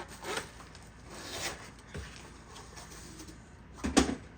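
Packaging being handled: a few soft rustling swishes, then a sharp knock near the end.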